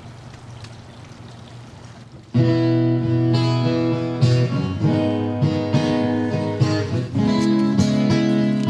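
Faint low background hum for about two seconds, then acoustic guitar music starts suddenly and loudly with strummed chords that continue: the instrumental opening of a song.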